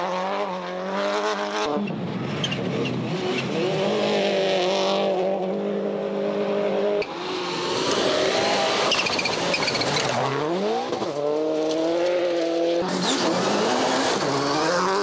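Subaru Impreza WRC rally cars' turbocharged flat-four engines at full throttle on gravel, held high and then climbing in pitch as they rev up through the gears, over a hiss of tyres and stones. The engine note changes abruptly three times as one pass gives way to the next.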